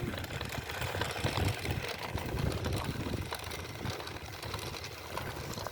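Small electric motor of a remote-control toy car running as it drives, under an uneven low rumbling noise.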